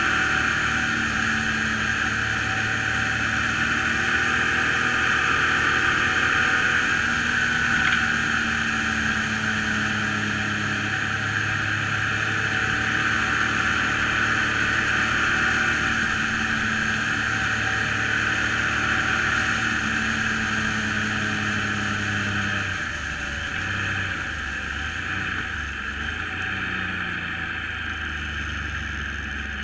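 Triumph Trophy 900 three-cylinder engine running steadily at road speed, heard from a bike-mounted camera against rushing wind noise. About 22 seconds in the engine note drops and eases off as the bike slows.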